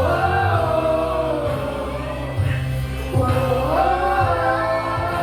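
Gospel music: a singing voice holds and bends long notes over a band accompaniment with a steady bass line.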